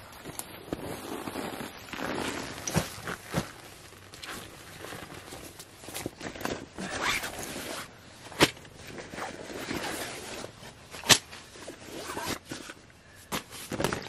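Nylon camping bags being handled: a roll-top dry bag and stuff sack rustling and scraping as they are opened and pulled apart, with a few sharp clicks, the loudest two about eight and eleven seconds in.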